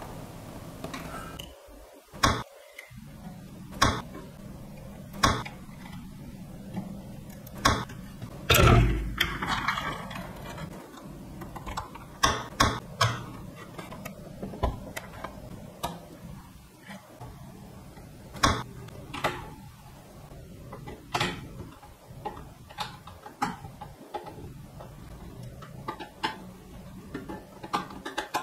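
Hand work with screwdrivers and small parts on a metal amplifier chassis and its circuit boards: irregular sharp clicks and light knocks every second or so, with one louder knock about nine seconds in.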